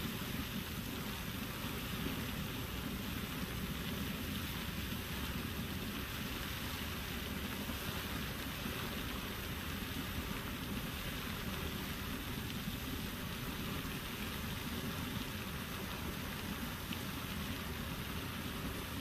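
Soda Springs Geyser, a cold-water geyser driven by carbon dioxide, erupting: a steady rush of jetting water and falling spray.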